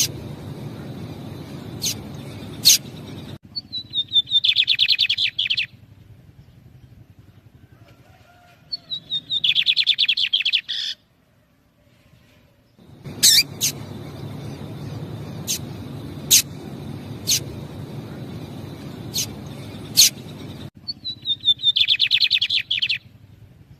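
Lined seedeaters (bigodinho): single sharp high call notes given now and then, answered three times by a rapid two-second burst of song, a fast run of notes dropping in pitch.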